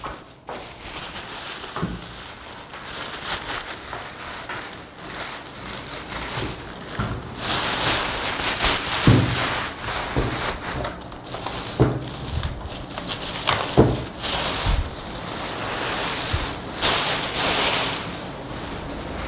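Thin polythene bag crinkling and rustling as it is dragged up and off a subwoofer cabinet and bunched up, with a few dull knocks along the way; louder in two stretches.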